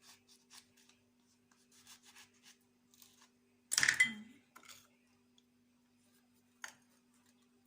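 Faint rubbing and scraping as salt-filled lemon quarters are handled and packed into a jar, then a sharp clink that rings briefly about four seconds in and a lighter click near the end, over a steady low hum.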